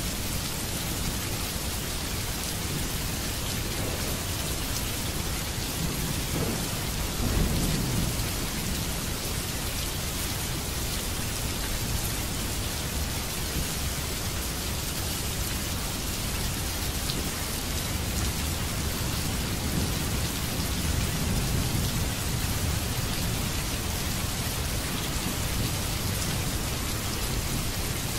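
Steady rain falling, a dense even hiss, with a low rumble of thunder swelling about seven seconds in and again, softer, around twenty seconds.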